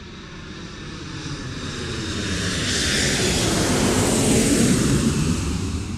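An airplane flying past: its noise swells steadily for about four seconds, is loudest near the end, then starts to fade.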